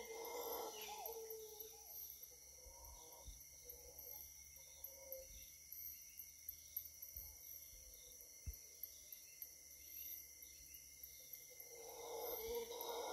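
Steady insect chorus droning at several high pitches, with a repeated high chirp a little over once a second. Mantled howler monkeys' roaring fades out in the first second and swells back in near the end, and a few soft low thumps fall in the middle.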